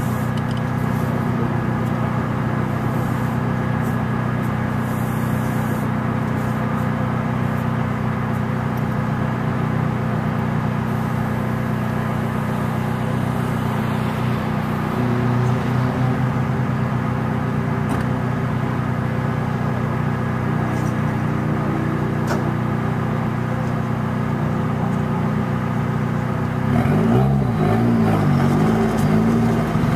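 Car engine idling steadily, heard from inside the open-top car. Near the end the engine note wavers up and down for a couple of seconds, a little louder.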